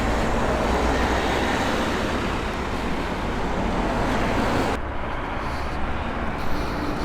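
Steady road traffic noise, a dense rushing hiss with low rumble; the upper hiss drops away suddenly about five seconds in.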